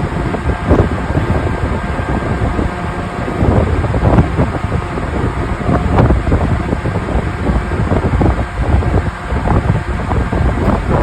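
Wind gusting across the microphone on a moving ferry, over the ship's steady low rumble.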